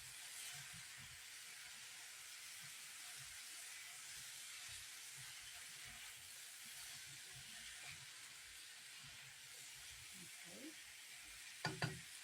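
Chicken and vegetables frying in a pan for a stir-fry, a faint steady sizzle, with two quick knocks near the end.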